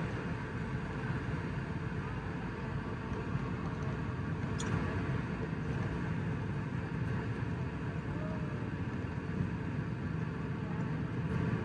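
Steady jet-engine and airflow rumble inside an airliner cabin as the plane moves along the ground on its engines, with an occasional faint tick.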